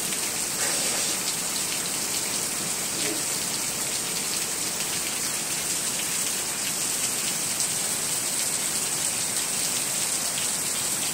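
Heavy rain falling steadily on grass, gravel and concrete: an even hiss of the downpour with scattered drop ticks.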